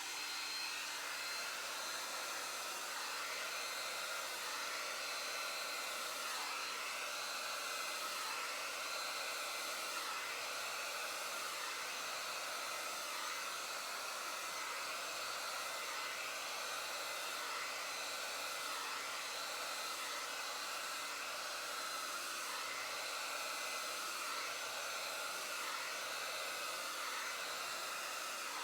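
Revlon hair dryer with no attachment blowing steadily, its rushing tone wavering slightly every second or two.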